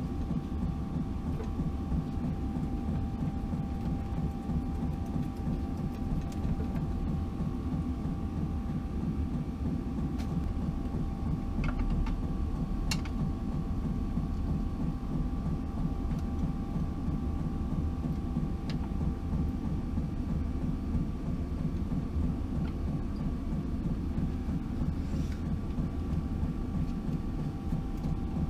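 Steady low mechanical hum and rumble, a machine running in the background, with a few faint light clicks scattered through it.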